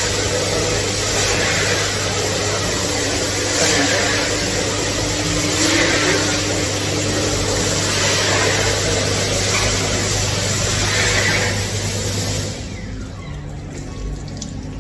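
Sensor-activated electric hand dryer running: a loud, steady blast of air over a motor hum, cutting off suddenly about twelve and a half seconds in.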